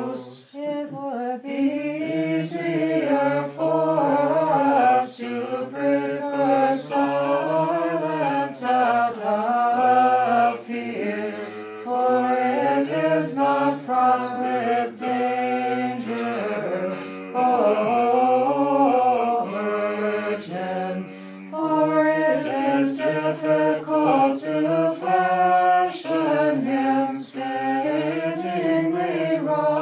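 Unaccompanied voices chanting a Nativity carol to a Znamenny chant melody, a single flowing melodic line with short breaths between phrases.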